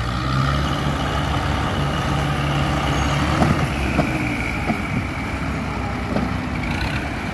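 Massey Ferguson 260 tractor's diesel engine running steadily under heavy load, pulling a fully loaded soil trolley heavy enough to lift the tractor's front wheels off the ground.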